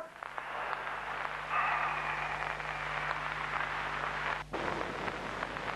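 Steady hiss over a low hum, growing a little stronger after about a second and a half and briefly cutting out about four and a half seconds in.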